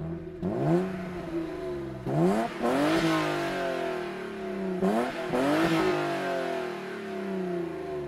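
BMW E36 323i's 2.5-litre straight-six on its stock exhaust, revved three times while the car stands still. Each rev climbs quickly and then falls slowly back toward idle.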